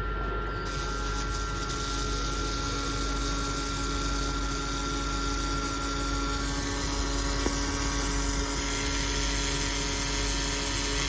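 Robotic laser welding system running: a steady machine hum with a continuous hiss that starts under a second in, and a thin whine that drops out about two-thirds of the way through.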